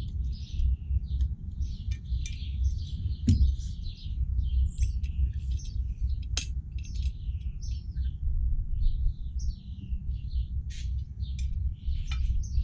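Small birds chirping busily and continuously, over a steady low rumble, with two sharp clicks about three and six seconds in.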